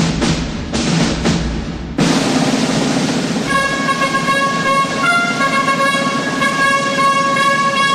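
Drum beats, then from about three and a half seconds in a trumpet sounds one long held note, stepping briefly to a higher note about a second and a half later before returning.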